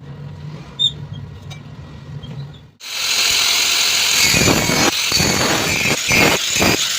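A low hum, then an electric arc welding arc strikes abruptly about three seconds in and runs with a loud, steady crackling hiss that stutters irregularly.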